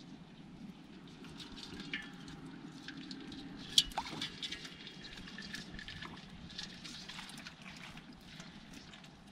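Wet live fish and water being handled in a plastic bucket: small drips and splashes with scattered light clicks, and one sharper knock about four seconds in.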